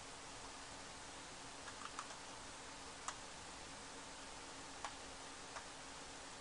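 A handful of short clicks from computer input: a quick little cluster about two seconds in, then single clicks around three, five and five and a half seconds in. They sit over a steady low hiss with a faint hum.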